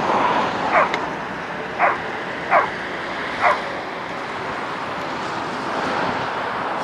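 A dog barking: four short, sharp barks roughly a second apart in the first half, over steady background noise.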